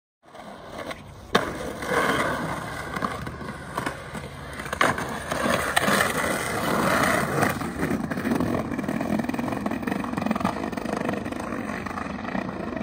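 Skateboard wheels rolling steadily over asphalt, with a sharp knock about a second in and another near five seconds.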